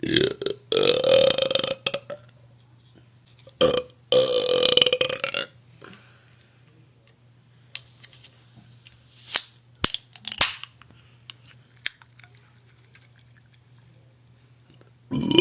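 A woman belching on purpose: two long, loud, deep burps, each held for over a second, about a second and about four seconds in, each led by a short gulp-like burst. Softer hissing and a few clicks follow, and another burp begins near the end.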